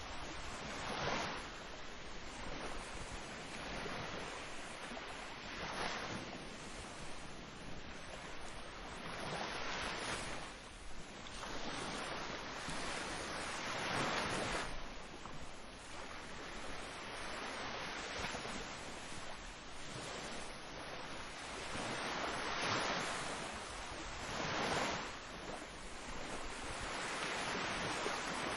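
Ocean waves breaking and washing in, a steady rush of surf that swells every few seconds as each wave comes in.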